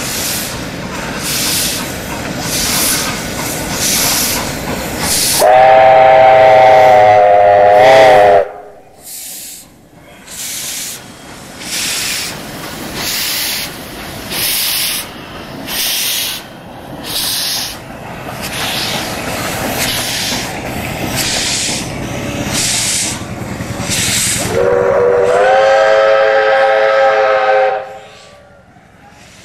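Double-headed Victorian Railways R class 4-6-4 steam locomotives working slowly, with a steady rhythm of exhaust chuffs. A steam whistle sounds twice, each blast about three seconds long and the loudest sound: once about six seconds in and again near the end, the second rising in pitch as it begins.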